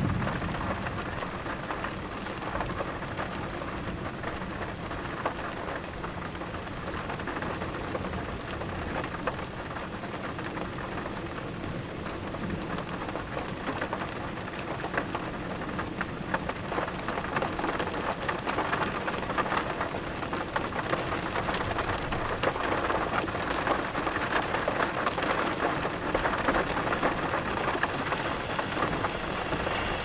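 Steady heavy rain during a severe thunderstorm, with the last of a thunderclap rumbling away in the first second. The rain grows louder and more crackling from about halfway through.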